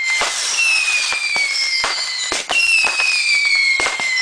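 Consumer fireworks going off: a series of shrill whistles, each falling in pitch over about a second and a half and followed at once by the next, over a steady run of sharp bangs and crackles.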